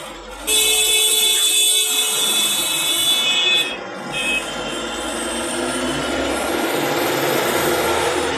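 Kolkata road traffic heard from a moving vehicle. A vehicle horn sounds loud and steady from about half a second in for about three seconds, then engine and road noise run on steadily.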